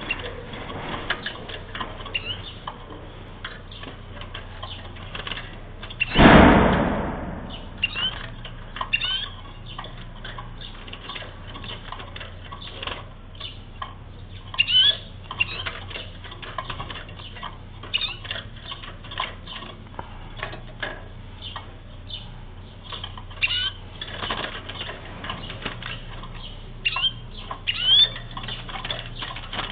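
Caged Atlantic canary (wild canary) giving short, scattered rising call notes, with frequent light clicks and taps of the bird hopping on the perches and bars. A loud rustling flutter stands out about six seconds in.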